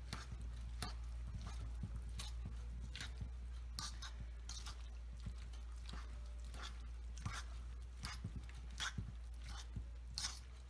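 Canned corn, cream cheese and onion being mixed in a stainless steel mixing bowl: wet squishing and scraping in short, irregular strokes about once a second, over a steady low hum.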